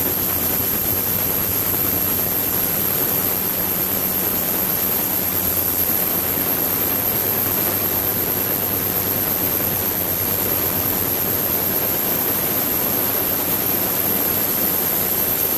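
Ultrasonic cleaning tank running with liquid circulating through it: a steady hiss with a constant high-pitched whine and a faint low hum underneath.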